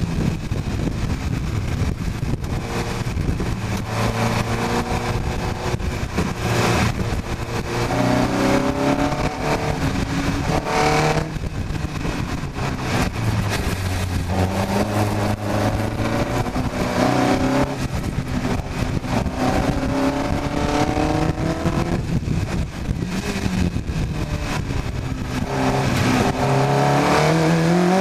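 Car-engined single-seater race car's engine heard onboard at speed, revving up through the gears and easing off into corners again and again, its pitch climbing and falling back with each run.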